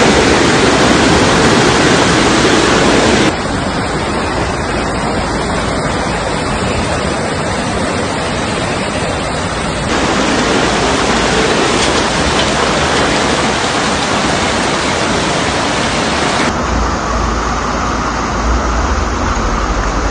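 Loud, steady rush of floodwater pouring down a street in heavy rain. The noise changes abruptly three times, about three, ten and sixteen seconds in.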